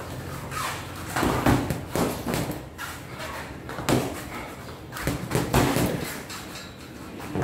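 Boxing gloves landing on gloves, headgear and body during sparring: a run of irregular thuds, the heaviest about a second and a half in, at about four seconds and just after five.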